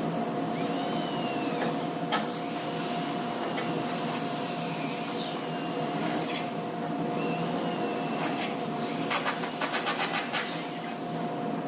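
An electric motor running steadily with a constant high whine, like a power tool or dust extractor, with a quick run of taps near the end.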